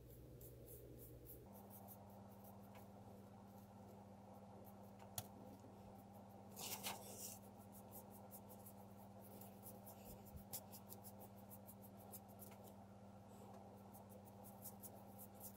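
Near silence: faint scratching and tapping of a small paintbrush working black chalk pigment onto a painted foam board, with one brief louder rustle about seven seconds in, over a low steady hum.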